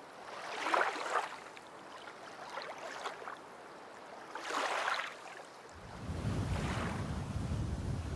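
Water washing along a sailboat's hull in rising and falling swells, about three in a few seconds. From about six seconds in, wind buffets the microphone with a steady low rumble.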